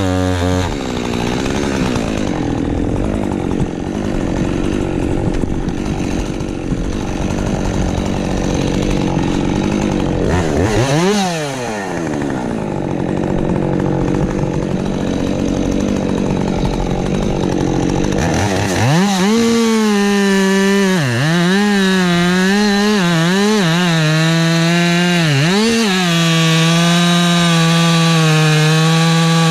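Husqvarna 550 XP Mark II single-cylinder two-stroke chainsaw running, its engine pitch falling at the start and rising and falling once more a little past the middle. For the last third it runs at high revs with the pitch dipping again and again, as the engine takes load in a cut.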